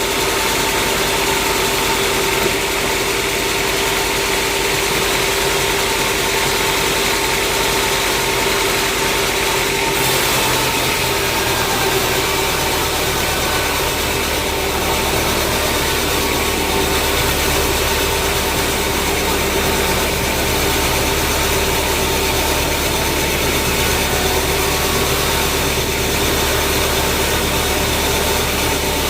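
Engine running steadily, with a steady hum; a deeper low rumble strengthens about ten seconds in.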